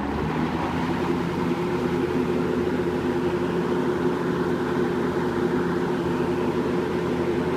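1975 Kmart (Lakewood) K-223-W 20-inch box fan with a Westinghouse motor and plastic blades running on high: a steady rush of air over a motor hum. It builds up to speed over about the first second, then holds steady. On this fan high runs faster than a normal high.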